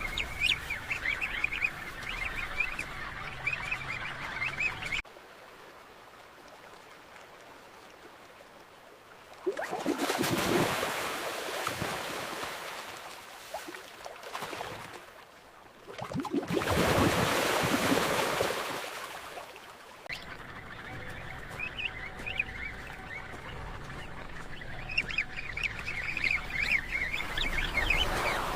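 Emperor penguin colony calling, a dense chatter of honking calls. About five seconds in it cuts suddenly to a muffled underwater hush, broken by two surges of rushing water, before the colony calls return.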